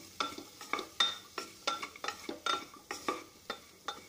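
A spoon stirring potatoes and onions in a pressure cooker to mix in the spice powders. It scrapes and knocks against the metal pot about four times a second, each knock with a short ringing note, over some sizzling of the frying masala.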